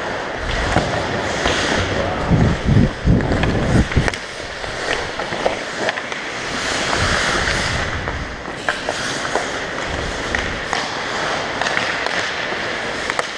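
Ice skate blades scraping and carving on rink ice, heard from a helmet-mounted camera, with scattered sharp clacks of hockey sticks and puck. Low rumbling buffets on the microphone about two to four seconds in.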